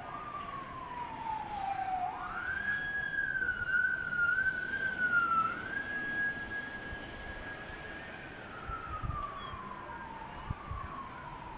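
Siren wailing through one long, slow cycle: the pitch dips, sweeps up sharply about two seconds in, holds high with a slight wobble, then slides slowly down. It is sounded as a tsunami evacuation warning.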